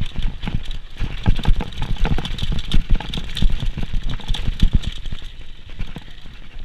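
Downhill mountain bike clattering over rough bike-park trail, picked up by a GoPro: a dense, irregular run of knocks and thumps from frame, chain and suspension over a low rumble. It is busiest in the middle and eases off near the end.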